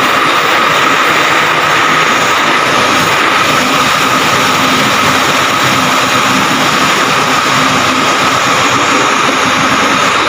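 Crane hoist running steadily, lowering a bundle of mild steel plates on chains: a loud, even machinery noise with a constant high whine and a lower hum.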